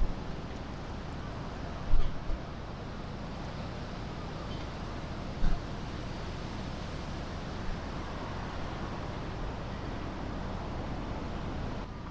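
Steady wind noise on the microphone, with two brief low buffets about two and five and a half seconds in.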